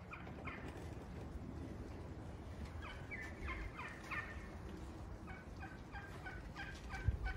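Wild turkeys calling: quick runs of short, repeated calls, heard faintly, in bursts about three seconds in and again from about five seconds.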